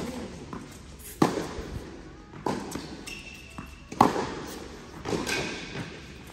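Tennis rally on a hard court: four sharp ball impacts, racket hits and bounces, about a second and a quarter apart, the second and fourth hardest.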